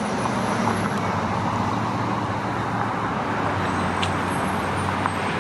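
Steady road traffic noise with a low, constant hum underneath.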